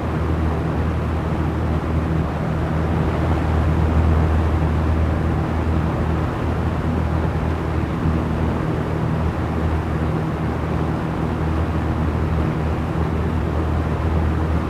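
Small electric fan running steadily: a low motor hum with a few steady tones under an even rush of moving air.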